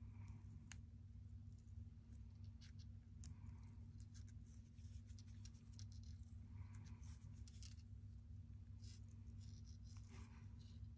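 Near silence: faint rustling of nitrile gloves and scattered light ticks as a loose steel watch mainspring is handled, over a low steady hum. One tick about three seconds in is a little louder.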